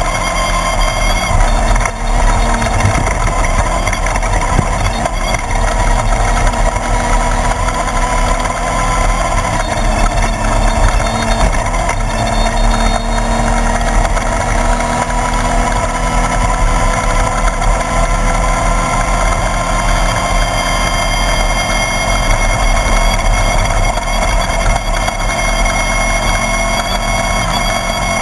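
The air-cooled 1600 cc VW engine of a Class 1/2-1600 desert race buggy, running continuously with its pitch drifting slowly up and down, over a constant rough driving noise.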